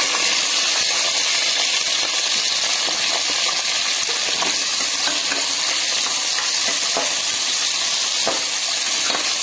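Shallots and cubed onions sizzling in hot sesame oil with tempered spices in an aluminium pressure cooker: a steady hiss. In the second half a metal spatula scrapes through them a few times as they are stirred.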